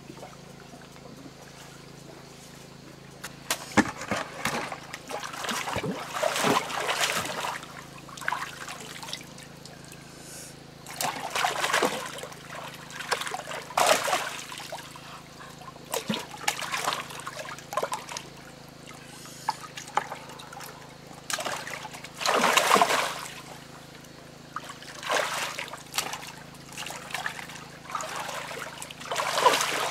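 Hands splashing and slapping in shallow muddy water while grabbing at fish, in irregular bursts every few seconds, with water trickling in between. A faint steady low hum runs underneath.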